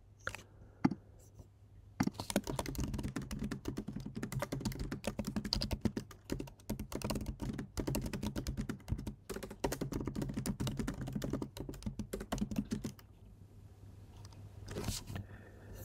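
Typing on a computer keyboard: a fast, continuous run of keystrokes lasting about eleven seconds, starting about two seconds in after a couple of single clicks, then stopping.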